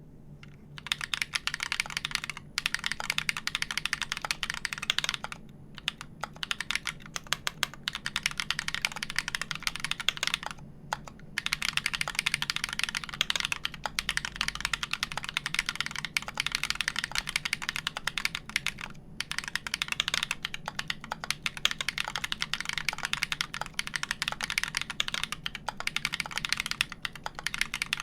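Fast continuous typing on a custom mechanical keyboard with lubed Everglide Dark Jade Black switches on a wood plate and GMK keycaps. The keystrokes begin about a second in and run in quick runs, broken by a few brief pauses.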